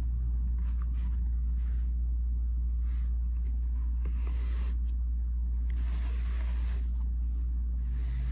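Faint, soft swishes of embroidery thread being drawn through a woven thread lattice on fabric, coming every second or so, over a steady low electrical hum.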